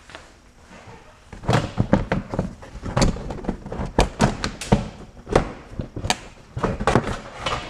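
Plastic front wheel-well liner being pulled and worked out of the wheel arch: a fast, irregular run of knocks, thuds and plastic clatter starting about a second and a half in.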